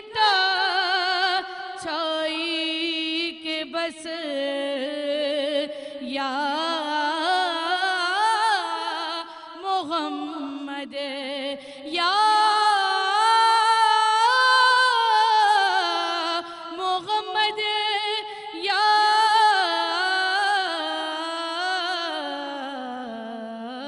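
A woman singing a naat solo, unaccompanied, into a microphone: one voice in a wavering, ornamented melody with long held notes, sinking lower near the end.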